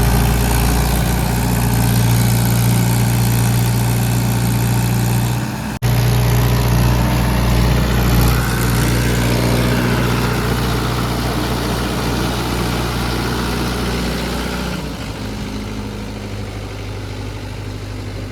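Heavy diesel engine of a working machine running steadily. It breaks off for an instant about six seconds in, and from about fifteen seconds it sounds quieter and duller.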